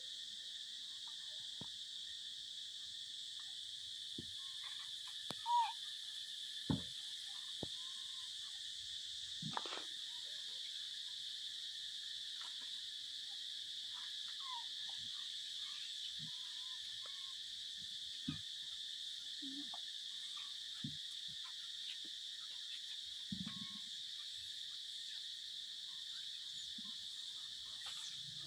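Steady high-pitched drone of insects, with a few short faint squeaks and soft knocks scattered through it, the loudest squeak about five seconds in.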